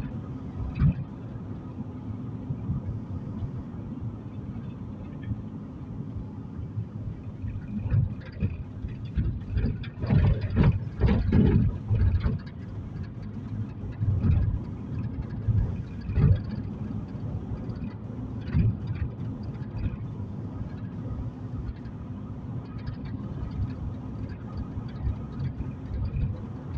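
Road noise inside a moving car: a steady low rumble of engine and tyres, with short uneven jolts that are loudest in a brief stretch about ten seconds in.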